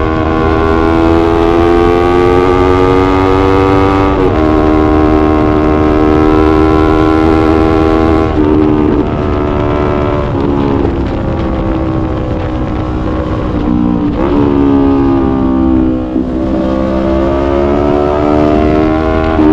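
Yamaha YZF-R3 parallel-twin engine under way. Its pitch climbs slowly and drops sharply several times, about every few seconds.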